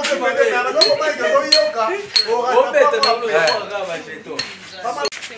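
A run of about six sharp metallic clinks, like metal striking glass or crockery, over people talking.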